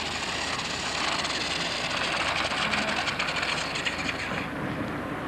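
Small electric remote-control car running: a steady high rushing whir of its motor and wheels that cuts off suddenly about four and a half seconds in as it stops.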